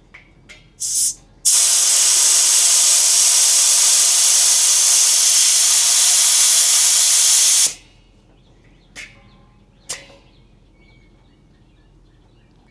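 Compressed air hissing out of a well pressure tank's air valve: a short puff about a second in, then a loud, steady hiss for about six seconds that cuts off sharply. Two sharp clicks follow.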